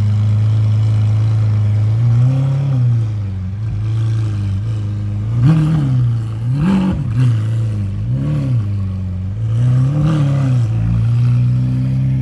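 Lamborghini Aventador SV's V12 idling, then blipped five times, each rev rising and falling quickly, before settling back to a steady idle.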